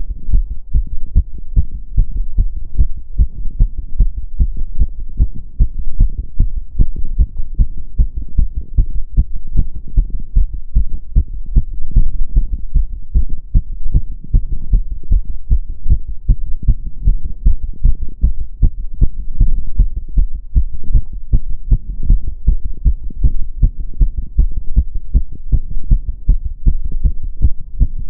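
A woman's heart beating fast, raised by step-up exercise: a quick, even run of low thuds.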